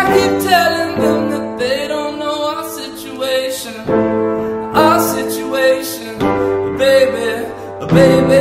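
A man singing wordless, sliding vocal runs over held piano chords that are struck anew every few seconds.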